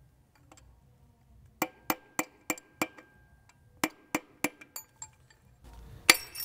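Hammer knocking on the connecting rod and piston in a Porsche Cayenne Turbo's 4.8-litre V8 block to drive them out of the bore: a quick run of about six sharp metallic taps, a pause, four more, and one louder knock near the end, each ringing briefly. The rod, bent by hydrolock, is stubborn to come out.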